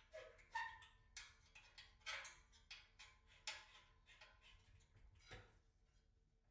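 Faint, irregular metal-on-metal clicks, about two a second, some with a brief ring: an Allen wrench being seated in and turned on the bolts that hold a mailbox mounting bracket to an aluminum post.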